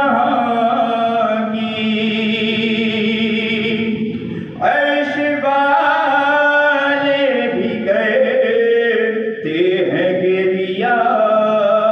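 A man chanting an Urdu noha (mourning lament) into a microphone, in long drawn-out, wavering phrases with brief breaks for breath between them.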